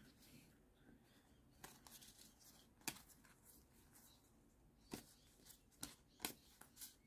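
Quiet handling of a stack of Pokémon trading cards: a handful of soft clicks and slides as the cards are fanned and shifted against each other, otherwise near silence.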